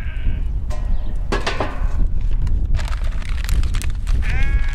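Wind buffeting the microphone with a heavy, steady rumble, broken by a few knocks and rustles. A farm animal bleats right at the start and again near the end.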